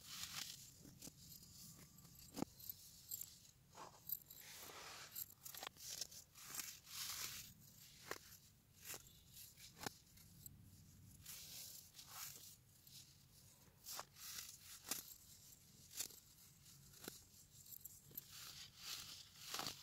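Hands squeezing and crumbling pressed baking soda chunks into loose powder. The sound is soft, dry crunching and crackling in quick, irregular succession, with a few sharper cracks and a faint hiss of powder sifting.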